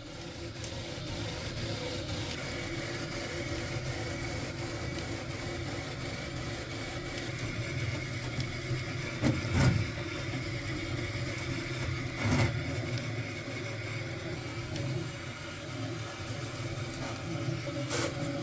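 Peopoly Magneto X 3D printer running a print: a steady mechanical whir and hum from its cooling fans and the closed-loop linear motors driving the X and Y axes, with faint fast ticking as the head moves. Two louder knocks come about nine and a half and twelve and a half seconds in.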